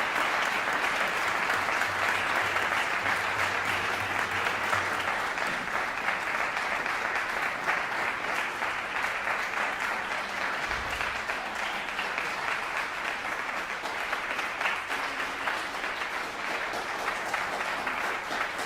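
Audience applauding steadily, the clapping easing a little in the second half.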